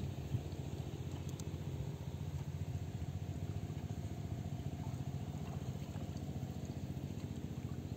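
An engine idling steadily, with a rapid, even low pulse.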